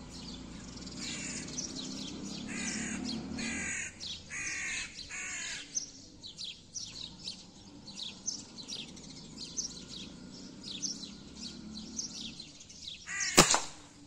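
Birds calling in the trees: a run of harsh caws in the first few seconds over steady high chirping of small birds. Near the end comes a single sharp gunshot, much louder than anything else.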